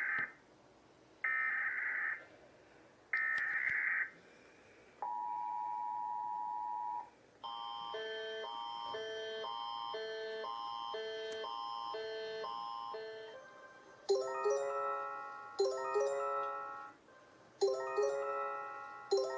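Mock Emergency Alert System alarm: three short buzzing data bursts like an EAS header, then a steady two-second attention tone. A rapidly alternating electronic alarm pattern follows, and in the last third a descending chime repeats about every second and a half.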